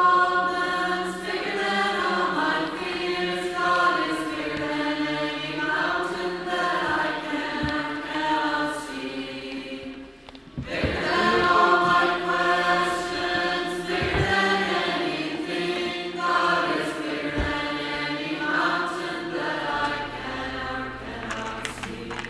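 Background music of a choir singing in sustained phrases, with a brief pause about ten seconds in.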